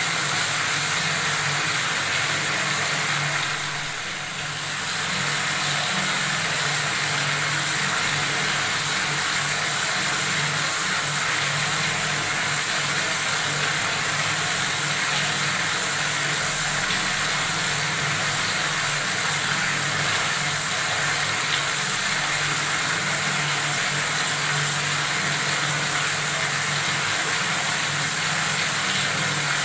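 Water running steadily from a faucet, an even rushing sound with a brief dip in level about four seconds in.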